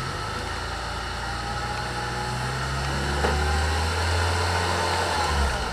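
Mazda Miata NA's four-cylinder engine running with a steady low drone that builds slightly and drops back near the end; the engine has a vacuum leak that the owners say keeps it from idling.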